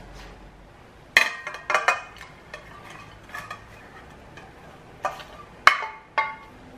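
A ceramic plate clinking against the rim of a stainless steel pot while food is scraped off it with a wooden spatula: about seven sharp, ringing clinks, the loudest about a second in and near the end.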